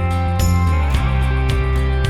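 Background instrumental music with guitar, a strong bass line and a steady beat.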